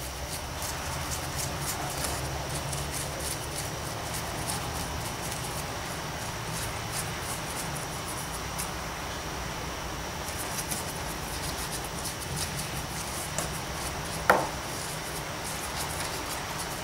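A paintbrush dabbing and scratching into rock moulds, giving many short, faint scratchy ticks over a low steady hum, with a single sharp tap about fourteen seconds in.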